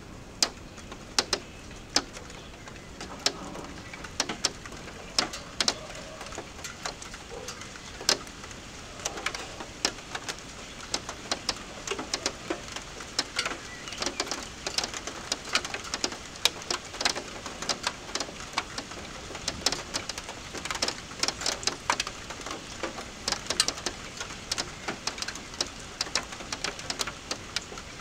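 Raindrops tapping irregularly on a hard surface close by, sparse at first and coming thicker after about eight seconds. A pigeon coos low a few seconds in.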